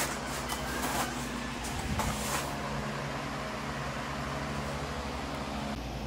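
A steady low mechanical hum, with a few crunching footsteps in snow during the first two or three seconds.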